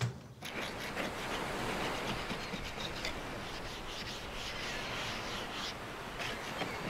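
A hand sanding or scraping the weathered, flaking paint of a wooden boat, a continuous run of rasping rubbing strokes. A brief low thump comes right at the start.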